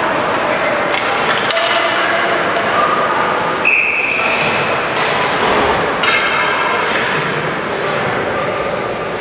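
Indoor ice hockey game heard from the stands: a steady din of skates and sticks on the ice, thuds and spectators shouting in a large echoing rink. A short, sharp, high ringing tone sounds a little under four seconds in.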